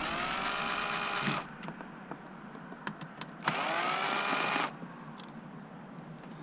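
Power drill-driver running in two short bursts, each spinning up to a steady high whine, as it backs out the small screws of a truck's steering column cover.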